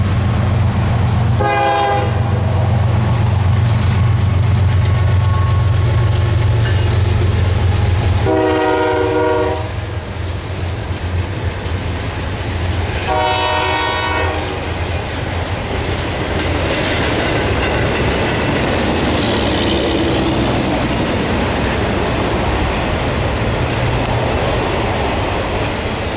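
GE ES40DC diesel-electric locomotive running past under power with a steady low engine drone, sounding its air horn three times: a short blast about a second and a half in, then two longer blasts around 8 and 13 seconds. After about 10 seconds the engine drone drops and the steady rolling clatter of intermodal trailer cars on the rails takes over, with a little wheel squeal.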